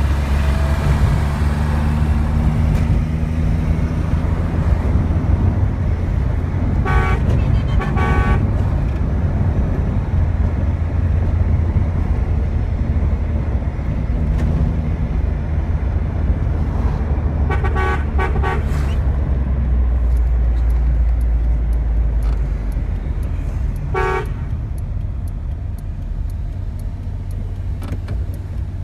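Car engine and road rumble heard inside the cabin while driving through city traffic, easing near the end as the car slows for a red light. Short car-horn toots sound over it: two about seven seconds in, a quick cluster of toots around seventeen to nineteen seconds, and one more near the twenty-four-second mark.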